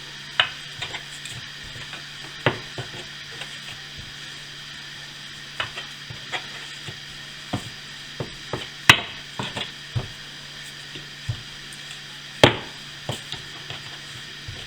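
Rolling pin working a ball of bannock dough on a board: irregular light knocks and taps, the two loudest about nine and twelve seconds in, over a steady low hum.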